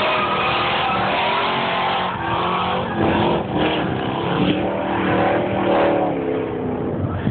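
Car engine revving while drifting, its pitch rising and falling, with tyres skidding on the track.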